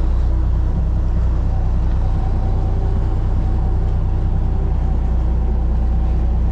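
Boat engine running at a steady speed, a constant low drone with no change in pitch.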